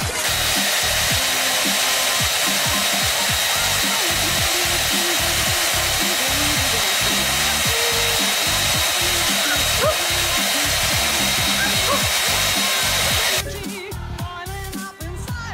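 Handheld hair dryer blowing steadily, with a thin high whine in its rush of air, over background music. It cuts off suddenly about thirteen seconds in, leaving the music.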